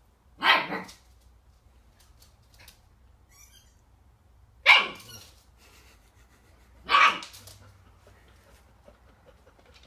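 Husky puppy barking three times: single short barks about half a second in, near five seconds and about seven seconds.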